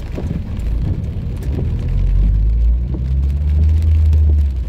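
Car engine and road noise heard from inside the cabin, the low drone growing louder about two seconds in as the car picks up speed, its pitch slowly rising. Rain is falling on the car.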